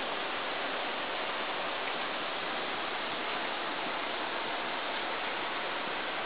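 Steady rushing of a mountain river or stream heard from high above in a rocky gorge, an even, unbroken wash of water noise.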